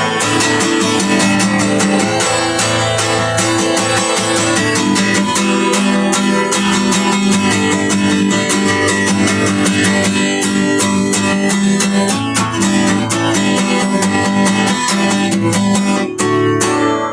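Guitar music, strummed and picked in a steady, busy rhythm of ringing notes.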